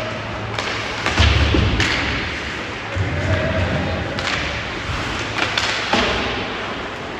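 Ice hockey play: sharp clacks of sticks and puck and several dull thuds, as of the puck or players hitting the boards, scattered irregularly.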